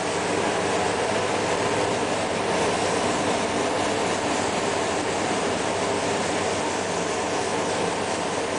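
Steady hiss of a spray gun misting liquid onto a small wooden fishing lure in the spray-chrome process, over a steady low machine rumble.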